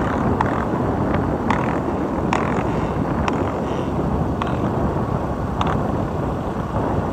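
Steady rush of wind and engine noise from a moving vehicle that the recording rides on, with about seven short sharp clicks scattered through it.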